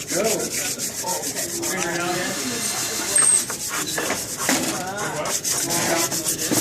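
Sandpaper rubbed by hand back and forth along the edges of a wooden piece in quick, steady, repeated strokes, breaking the sharp edges and corners smooth.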